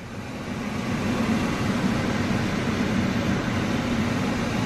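A steady whooshing hum like a running fan. It builds over the first second and then holds even.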